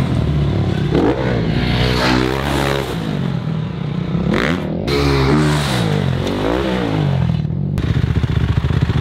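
Motocross bike engines revving up and down in repeated rising and falling surges through freestyle ramp jumps, then dirt bikes idling with a rapid steady putter near the end.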